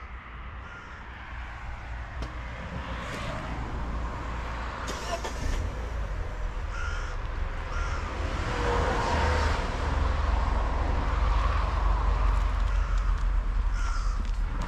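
A few short bird calls, spaced a few seconds apart, over a low rumble that grows steadily louder.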